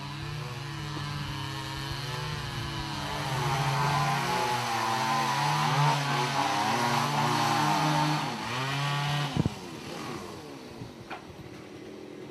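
A small engine running, its pitch wavering up and down and loudest through the middle, then a sharp knock about nine seconds in after which it drops away.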